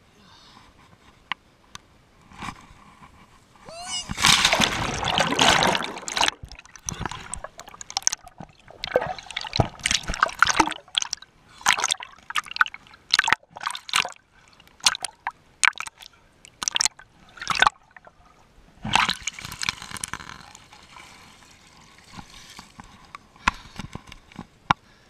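Water rushing and splashing around a camera riding down a waterslide: a sustained rush about four seconds in, then a run of short sharp splashes and drips, and a second rush at about nineteen seconds.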